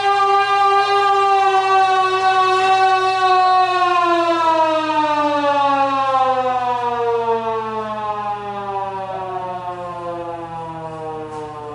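Air raid siren holding a steady wail, then winding down from about four seconds in, its pitch and loudness slowly falling.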